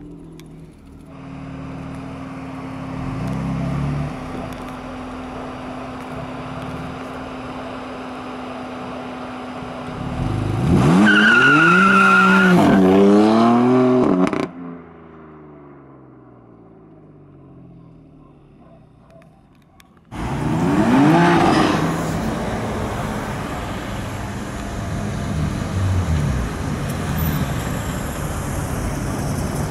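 BMW M4's twin-turbo straight-six revved hard as the car pulls away, with a wavering high tyre squeal over it, then the engine note falling away as it drives off. About twenty seconds in, a sudden loud rev, followed by engines running steadily in street traffic.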